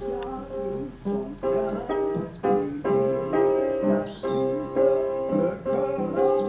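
Background piano music: a slow melody of held notes, a new note or chord struck about every half second to second.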